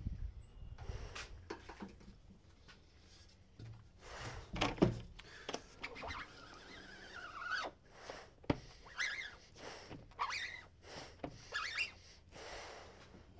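Knocks and clanks from a manual rotary screen-printing press as the screens and platens are handled, with a few scraping squeegee strokes across the screen. The loudest knock comes about five seconds in.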